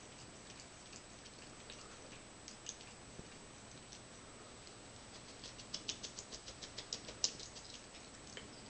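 A cat lapping water, faint. Scattered soft wet ticks are followed, about halfway through, by a quick run of about a dozen tongue clicks lasting some two seconds.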